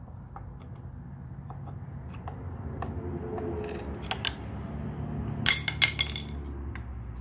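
Screwdriver prying at the plastic cap over a motorcycle's upper ball-joint nut: scattered light clicks and scrapes of the tool against the cap and metal, with a quick run of sharper clicks a little over five seconds in.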